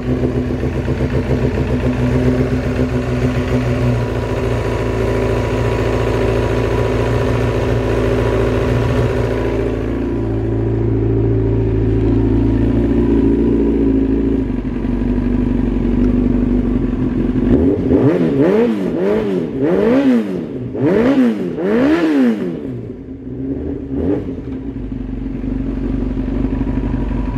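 Kawasaki ZX-9R's inline-four engine idling steadily on freshly changed oil, then revved in several quick throttle blips, the pitch rising and falling, before it settles back to idle.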